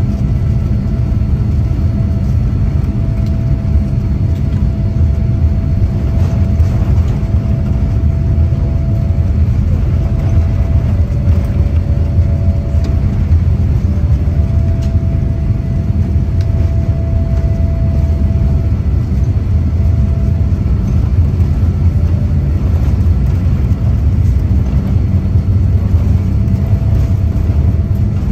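Boeing 787-8 jet engines heard from inside the cabin on the takeoff roll: a loud, steady rumble with a faint wavering whine above it as the airliner accelerates down the runway.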